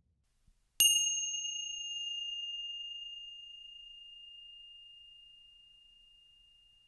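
A small bell chime struck once, about a second in, its single clear high tone ringing on and slowly fading away over several seconds.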